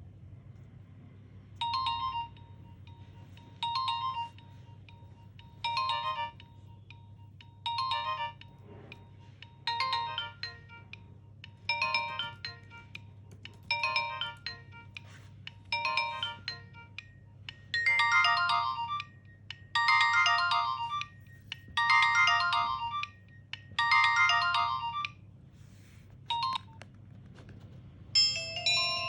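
Nokia 1650 mobile phone playing one of its built-in ringtones: a short electronic phrase repeating about every two seconds, becoming louder and fuller about eighteen seconds in. A different ringtone starts near the end.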